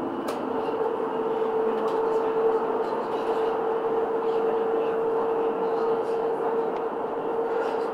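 Munich R 2.2 low-floor tram running at steady speed along street track: the rolling noise of its wheels on the rails, with a steady hum from its drive.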